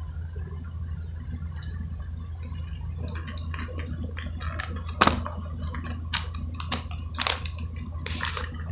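Stiff plastic blister packaging on a cardboard backing card crinkling and crackling as hands handle it and work it open. Scattered sharp crackles begin about three seconds in, the loudest about five seconds in, over a steady low hum.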